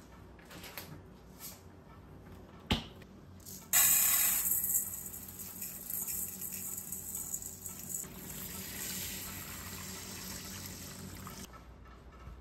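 Tap water running: it comes on suddenly about four seconds in, loudest at first, then runs steadily and is shut off near the end. A single sharp click comes a second before it starts.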